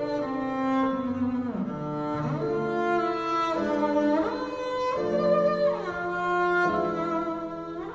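Music: a slow string melody, cello-like, with held notes that slide from one pitch to the next.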